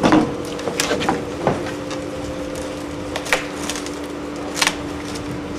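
Scattered sharp knocks and clicks of work on the timber and bolted steel of a roof truss being dismantled, about six in all, over a steady mechanical hum.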